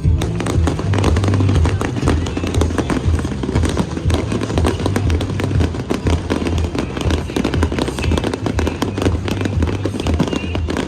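Fireworks bursting and crackling in a dense, continuous barrage, over music playing loudly with a pulsing bass.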